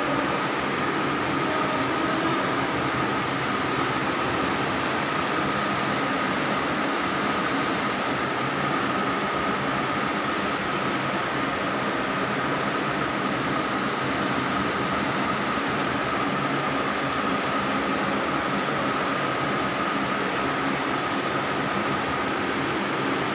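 Steady whirring hum of electric fans running in a large hall, with a thin steady whine on top and no change throughout.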